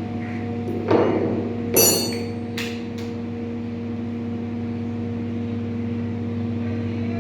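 CNC router running with a steady mechanical hum. Two knocks about a second apart, the second with a metallic ring, then a couple of light clicks.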